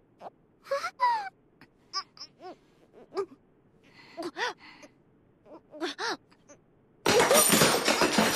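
A girl's voice making short muffled gasps and moans while being kissed against her will. About seven seconds in, a sudden loud crashing sound breaks in.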